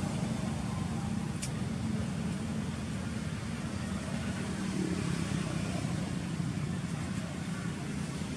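Steady low rumble of motor traffic over a faint hiss, with one brief tick about a second and a half in.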